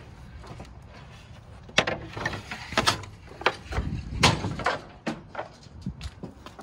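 Irregular knocks and clatters from junk being shifted around in a metal dumpster, starting about two seconds in and easing off near the end.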